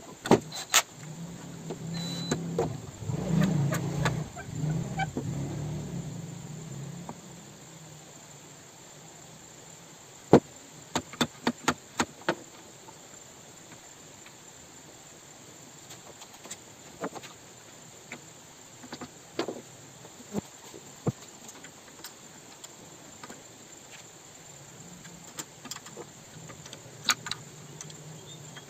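Cordless drill-driver whirring for about five seconds, starting about two seconds in, driving screws into a circular saw's housing. A run of sharp clicks and knocks follows as the saw and tools are handled.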